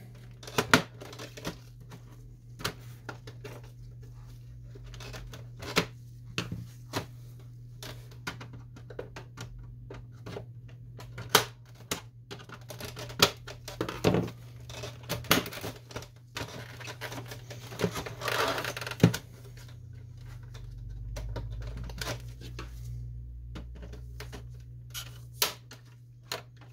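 Scattered plastic clicks, snaps and knocks from the housing panels of a Canon Pixma MP560 inkjet printer being handled and pried apart, at irregular intervals over a steady low hum.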